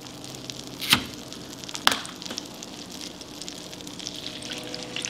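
Melted butter sizzling and crackling in a hot frying pan, with two sharp clicks about one and two seconds in.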